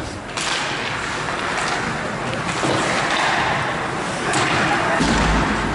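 Ice hockey play in an indoor rink: a steady hiss of skates scraping and carving the ice, with a few faint knocks of sticks or puck.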